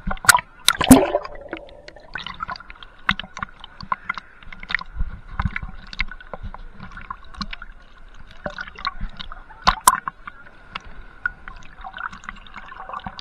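Seawater sloshing and splashing against a waterproof action camera bobbing at the surface, with gurgles and sharp clicks and pops as waves wash over the housing. The loudest splashes come near the start and about ten seconds in, with a faint steady high hum under the water noise.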